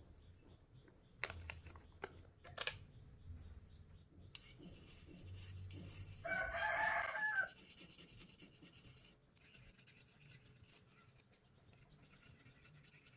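A rooster crowing once, a single call a little over a second long starting about six seconds in. A few sharp clicks come earlier, in the first four or five seconds.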